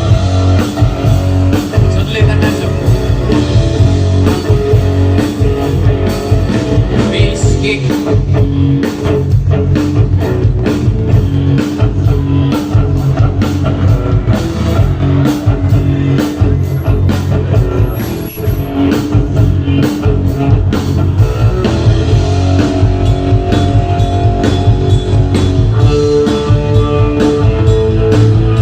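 Rock band playing loud, steady music: guitar and drum kit over a strong bass line.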